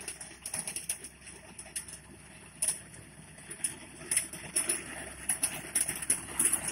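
Tractor-mounted paddy reaper cutting rice stalks: irregular sharp clicks and crackles over a low, steady engine hum, getting louder as the machine comes closer.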